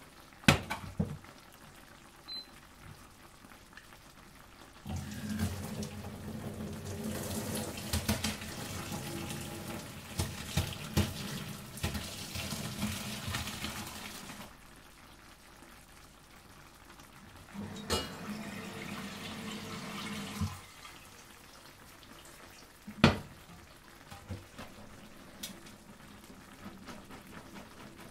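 Hot pasta water and tortellini poured from a steel pot into a colander in the sink, splashing and draining, in one long pour of about ten seconds and a shorter second pour later on. A few metal clinks come at the start, and a single sharp knock of metal comes near the end.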